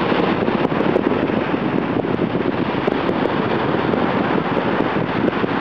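Steady rushing wind noise buffeting the microphone, with small gusty swells and no clear engine tone.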